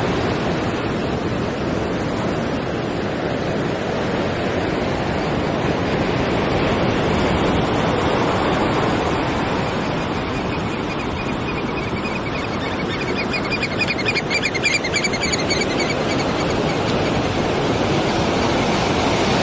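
Steady rushing of sea surf on the shore. About halfway through, a run of faint high chirps sounds over it for a few seconds.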